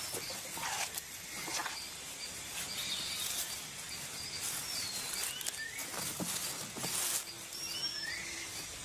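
Leaf-cutter ant cutting a leaf: soft, irregular crackling and rustling. Behind it is rainforest ambience with short bird chirps and whistles, several of them near the end.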